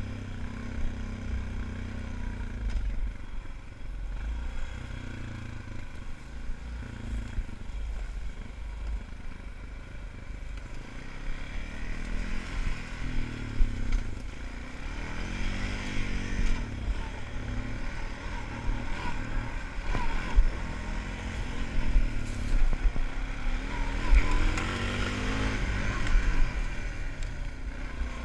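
ATV engine running as the quad is ridden along a rough woodland trail. The engine note rises and falls with the throttle, most of all in the second half.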